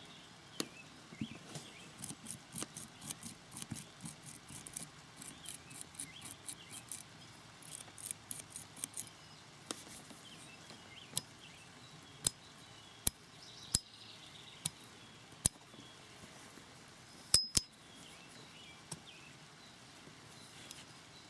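Small metallic clicks and light rattles of an M1 carbine trigger housing's parts being handled, as the newly fitted safety and magazine release are pushed and worked. The clicks come in quick runs for the first half, then grow sparser, with one sharper click about three quarters through.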